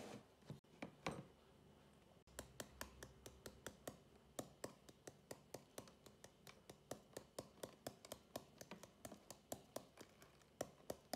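Quick light taps and ticks, about four or five a second, as baking soda is shaken out of its container and lands in a plastic tub.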